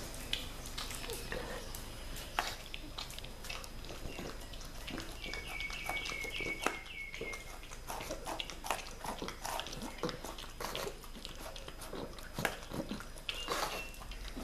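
A pug eating wet dog food from a small can on a tile floor: licking and chewing, with many irregular clicks and knocks as the can shifts against the tiles. A short run of high chirps sounds about halfway through.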